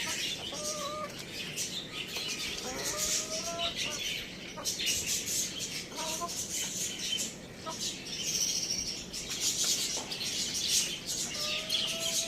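Chickens giving short clucking calls and one longer rising call a few seconds apart, over a continuous high-pitched chirping chatter.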